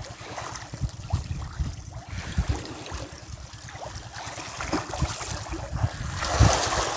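Many fish splashing and thrashing at the surface of a pond: irregular slaps of water, with a bigger splash about six seconds in. Wind buffets the microphone throughout.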